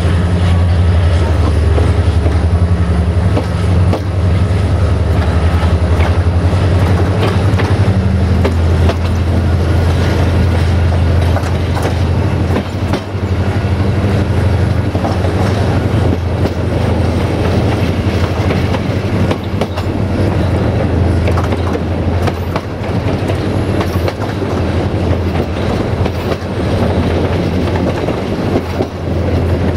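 Passenger train running, its wheels clicking and clattering over the rail joints, heard from a carriage window. A steady low hum runs underneath and weakens about nine seconds in.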